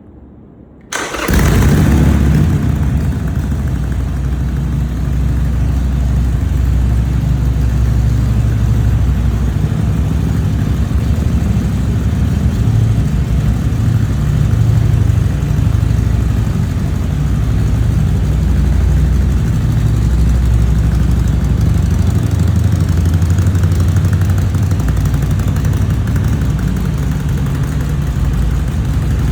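Harley-Davidson Sportster Iron 883's air-cooled V-twin engine starting about a second in, catching at once, then idling steadily with a deep, uneven beat.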